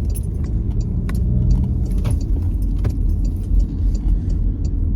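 Car cabin noise while driving: a steady low road and engine rumble, with scattered light rattling clicks.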